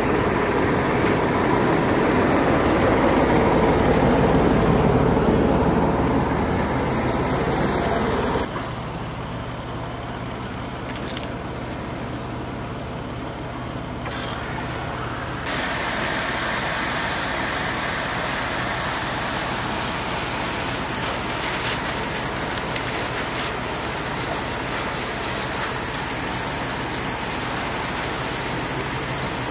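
Fire hose spraying water onto a burning boat, a steady rushing hiss over the low rumble of a fire engine running and the fire itself. The sound changes abruptly about eight seconds in and again about halfway through, becoming hissier near the end.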